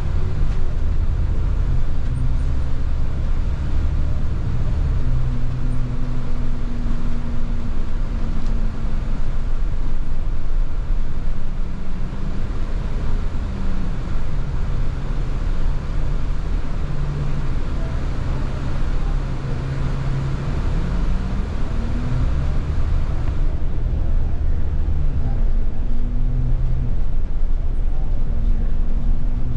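Double-decker bus running, heard from inside on the upper deck: a steady engine-and-road rumble, with the engine's pitch rising and falling as the bus speeds up and slows. The road hiss drops off about three-quarters of the way through.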